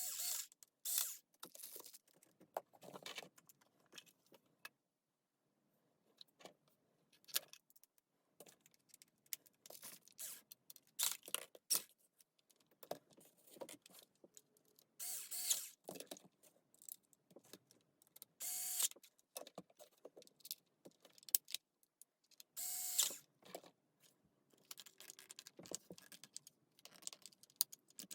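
Irregular clinks, clicks and short rattling bursts of small metal parts and tools being handled while a cordless drill is worked on, with quiet gaps between.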